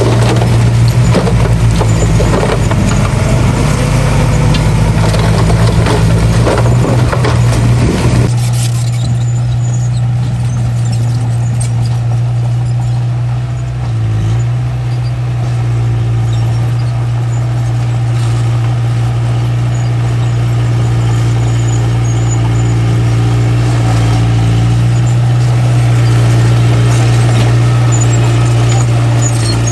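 Small bulldozer's diesel engine running with a steady drone. Rattling and clanking ride over it for about the first eight seconds, as of the dozer working its tracks and blade, then the engine runs on more steadily and a little quieter.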